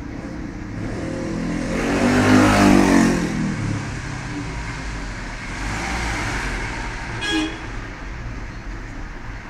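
Road traffic in the background: a motor vehicle passes, swelling to its loudest about two to three seconds in, over a steady low hum, and a short horn toot sounds near the end.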